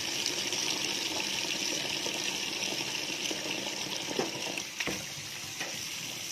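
Tap water pouring steadily into a water-filled stainless steel bowl in a sink. A few light knocks come about four to five seconds in, and the running water turns a little quieter after them.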